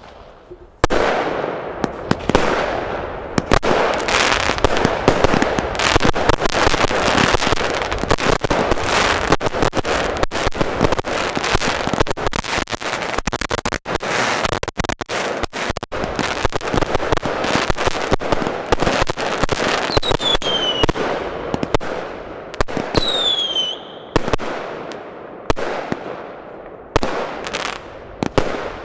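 A compound of six linked firework batteries firing after remote ignition. A dense barrage of launch bangs, bursts and crackle starts suddenly about a second in and runs on without a break. Two falling whistles sound about two-thirds of the way through.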